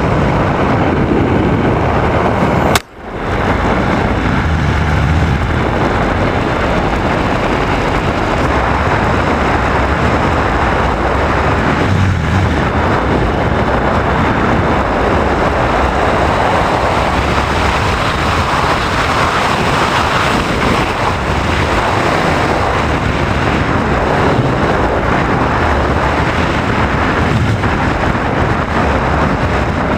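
Steady wind rush over the onboard camera microphone of a radio-controlled FPV model airplane in flight, with a sharp, brief dropout about three seconds in.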